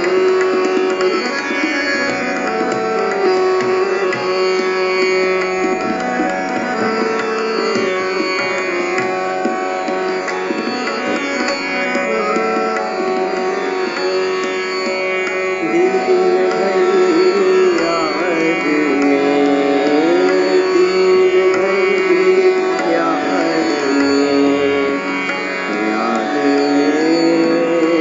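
Hindustani classical music in Raag Bhairavi: a steady drone under a melodic line, with tabla. From about halfway through, the melody glides between notes.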